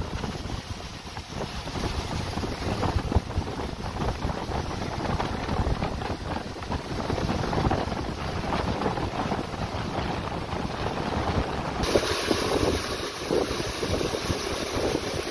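Gale-force wind of about 34 knots buffeting the microphone aboard a sailing catamaran, over the rush of water along the hulls and wake as she runs through steep seas. About twelve seconds in, the rushing turns brighter and hissier.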